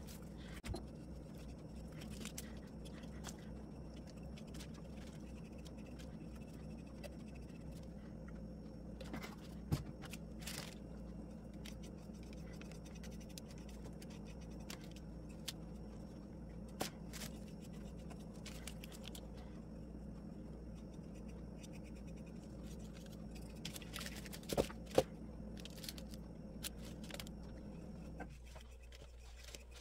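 Faint scrapes and rustles of a paintbrush spreading decoupage medium and fingers pressing napkin pieces onto a small birdhouse, with a few small knocks, the loudest a pair of them near the end. Under it runs a steady low hum that stops shortly before the end.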